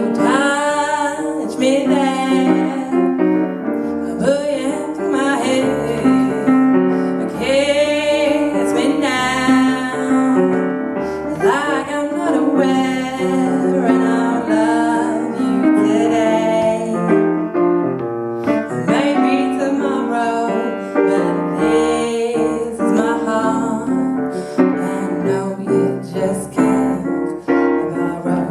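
A woman singing a slow song with vibrato over piano accompaniment, in phrases with short breaths between them.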